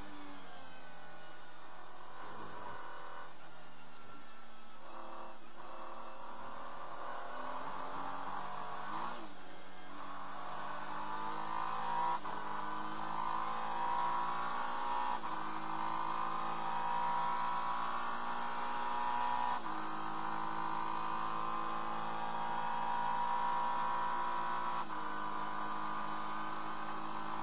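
Acura NSX GT3's twin-turbo V6 heard from inside the cockpit under racing load. The revs fall over the first couple of seconds, then climb slowly in long pulls. Each pull is cut by a sudden drop at an upshift, several times.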